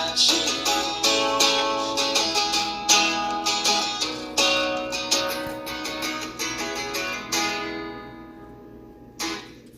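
Background music: acoustic guitar picking the instrumental ending of a country song, which fades out near the end.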